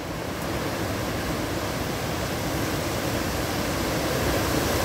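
Hurricane wind and rain, a steady rushing noise that grows slowly louder as a gust builds.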